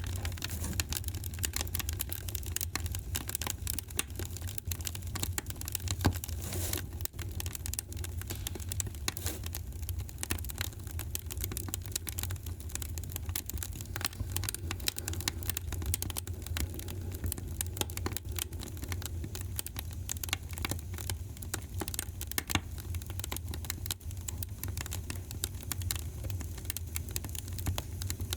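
Fireplace fire crackling: a dense, irregular run of small pops and snaps over a steady low rumble, with one louder pop about six seconds in.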